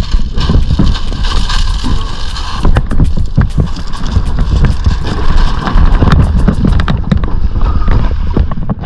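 Footsteps crunching over a gravel beach while a Viking Pro-fish 440 plastic kayak is hauled across the stones, its hull scraping, with wind buffeting the microphone.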